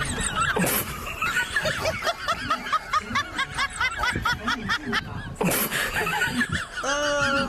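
Rapid high-pitched snickering laughter, several short notes a second, over background music, with a longer falling voice-like tone near the end.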